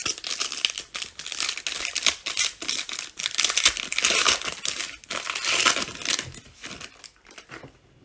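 Foil wrapper of a Spectra football trading-card pack crinkling and tearing as it is pulled open by hand. It is a dense run of crackles that dies away about seven seconds in.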